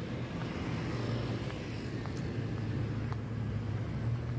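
Street traffic: a motor vehicle's engine running with a steady low hum, growing a little louder after about a second.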